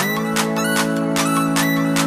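Background electronic music: sustained synth chords over a steady beat.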